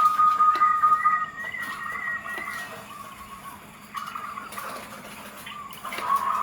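Zebra doves (perkutut) cooing: a loud held coo ends about a second in while a second, higher warbling coo overlaps it, then softer coos follow, and a loud coo starts again near the end.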